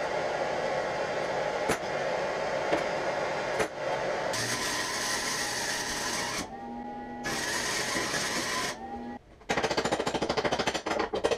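A lit gas torch hissing steadily, with a few light clicks. Then an arc welder crackling in two spurts of a second or two each. Near the end comes a loud, fast, rhythmic rattle from a power tool.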